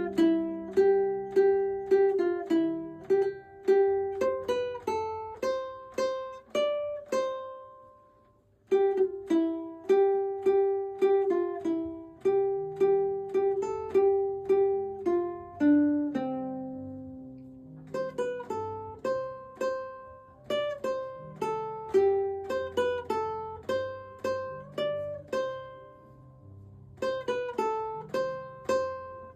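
Background music: a light plucked-string instrumental of picked notes, each struck and quickly dying away, over a soft low bass line. It breaks off briefly about eight and a half seconds in.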